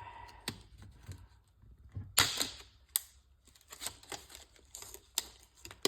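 Packaging on a hand tool being handled and opened: irregular crackles and clicks with a few sharp snaps.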